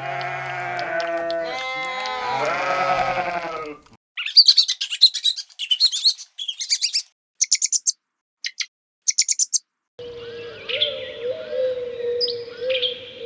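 Livestock bleating in long, wavering calls, then a sudden cut about four seconds in to small birds chirping in short, high, separate bursts. Near the end, chirping continues over a steady hum.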